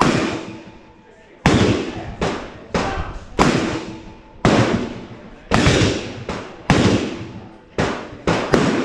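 AR-15 rifle firing a string of about ten shots at uneven intervals, each a sharp report followed by a long decaying echo.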